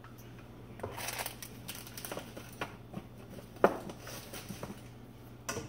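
Light rustling and small clatters of items being handled on a kitchen counter and in an upper cabinet, with one sharper knock about three and a half seconds in, over a low steady hum.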